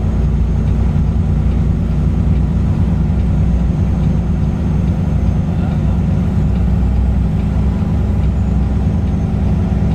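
Peterbilt 579 semi truck's diesel engine running, a loud, steady low drone.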